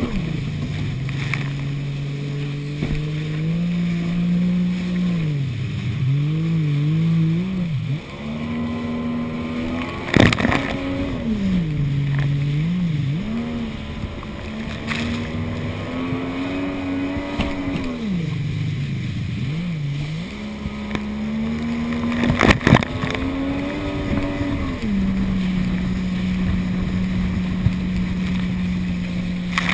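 Jet ski engine under way over choppy water, revving up and down as the throttle and load change. Its pitch dips and wavers three times, and it holds a steady note over the last few seconds. Sharp smacks of the hull hitting waves come about ten seconds in and again about twenty-two seconds in, over a wash of spray and wind.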